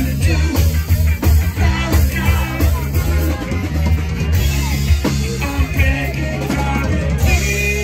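Live reggae-rock band playing: a man singing lead over electric guitar, bass and drum kit, with a heavy bass line.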